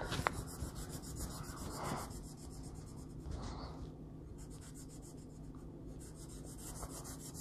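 Colored pencil shading on paper: soft, faint scratching strokes that rise and fall as the lead rubs back and forth.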